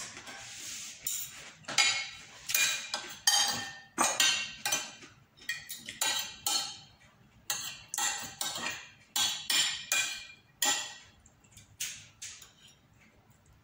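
Metal spoon and fork clinking and scraping on a ceramic plate while eating rice and noodles. The clinks and scrapes come about twice a second and thin out near the end.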